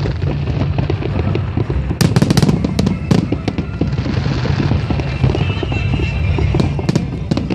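Aerial fireworks shells bursting one after another over a steady rumble. A dense run of bangs comes about two seconds in, with further bursts around three and seven seconds.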